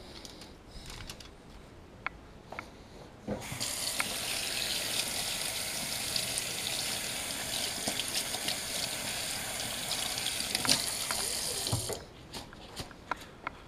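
Kitchen faucet running into a sink as gloved hands are rinsed under it, turned on about three seconds in and shut off near the end. A few light clicks and knocks come before and after.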